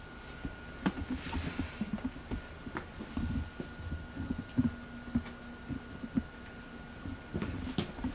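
Camcorder handling noise: irregular soft low knocks and a few sharp clicks as the camera is carried along, over a faint steady high whine.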